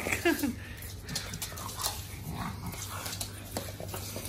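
Pugs playing: a pug gives short, falling whining yips right at the start, followed by scattered light clicks and a few fainter whines.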